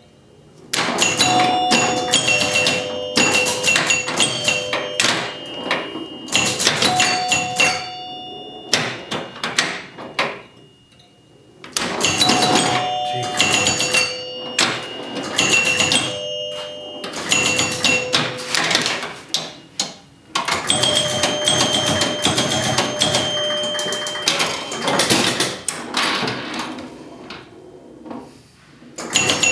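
1976 Gottlieb Surf Champ electromechanical pinball machine in play: rapid mechanical clacking and clicking with its chime bells ringing again and again as points score. The activity comes in busy runs with a brief lull about ten seconds in.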